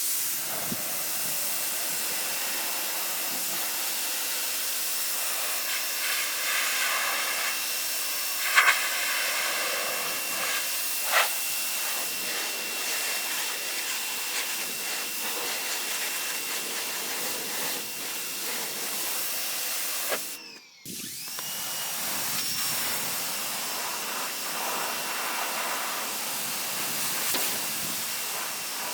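Sun Joe SPX3000-QW2 electric pressure washer spraying: a steady hiss of the water jet over a thin motor whine, with two sharp knocks about nine and eleven seconds in. About twenty seconds in the sound cuts out for a moment, then the whine rises back up.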